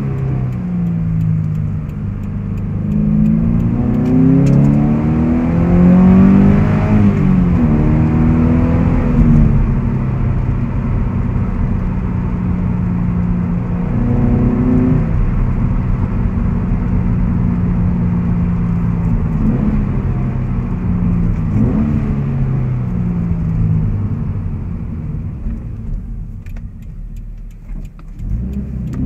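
2014 Subaru BRZ's 2.0-litre flat-four engine, with a Corsa cat-back exhaust and Corsa closed-box intake, heard from inside the cabin while driving. The engine note rises and falls several times with the throttle, holds steady in cruising stretches, and goes quieter near the end.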